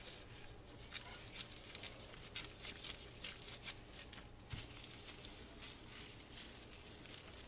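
Gloved hands rubbing honey mustard into raw pork chops on a metal sheet pan: faint, irregular light slaps and rubbing.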